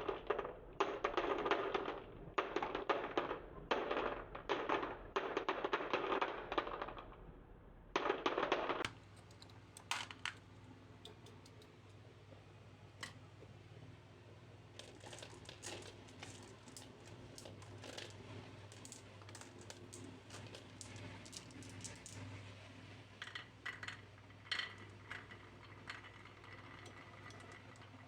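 Marbles rolling and clattering down a wooden marble-run slope in dense rattling bursts for about nine seconds. After that, only scattered light clicks and taps over a low steady hum.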